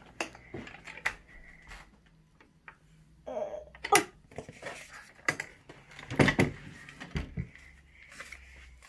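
Wooden dresser drawer being opened and handled: scattered knocks and clicks of the wood and its brass pulls, the loudest about four and six seconds in.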